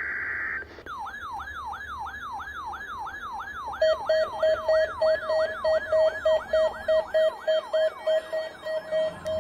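The tail of an Emergency Alert System SAME data burst (a buzzy digital tone), then a weather alert radio's siren alarm: a falling whoop repeated about three times a second. About four seconds in, a second receiver's alarm joins with loud, rapid beeping, the loudest sound. Both radios are being set off by a NOAA Weather Radio Required Weekly Test.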